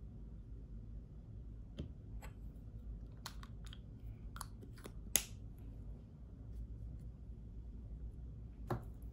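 Plastic lipstick tubes and caps being handled, giving a scattering of small sharp clicks and taps over a low room hum, the sharpest click about five seconds in and another near the end.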